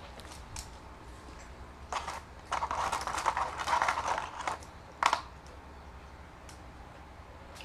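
Paper crinkling and rustling as a hand digs fries out of a McDonald's paper fry carton. It is a dense crackle for about two seconds, then one sharp crinkle about five seconds in.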